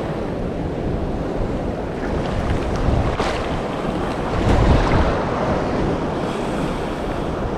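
Ocean surf washing around a wading angler, with wind buffeting the microphone; the water surges louder about three and five seconds in as a swell rolls past.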